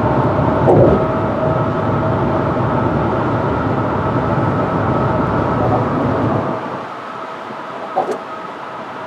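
Road noise heard inside a car driving at highway speed: a steady rumble of tyres and engine with a faint steady whine. About six and a half seconds in it becomes noticeably quieter and loses its low rumble.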